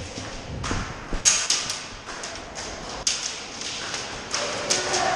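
Scattered sharp snaps and thuds of airsoft play: guns firing and BBs striking hard surfaces, irregularly spaced, several in the first two seconds and a few more near the end.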